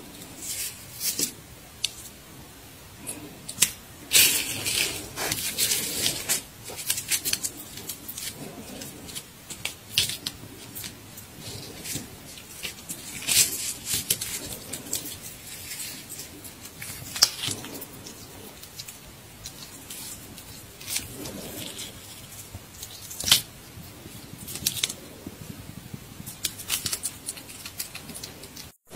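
A pet hedgehog crunching and tearing at a dry treat held in a person's fingers: irregular crisp crunches and crackles, a few of them much sharper than the rest.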